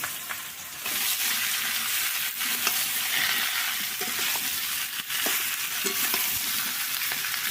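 Papaya and potato pieces sizzling as they fry in hot oil in a pan, with a spatula clicking and scraping against the pan as they are stirred. The sizzle grows louder about a second in.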